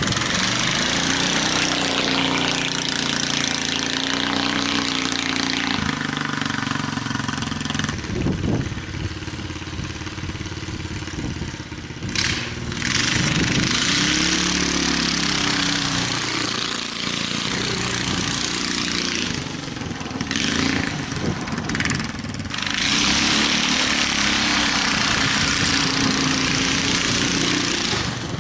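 Go-kart's 11 hp Honda single-cylinder engine running under load as the kart is driven, its pitch rising and falling repeatedly with the throttle. A steady hiss rides over the engine and swells when it runs faster.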